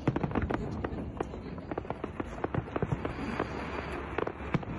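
Fireworks going off in a dense, irregular run of sharp pops and bangs, several a second.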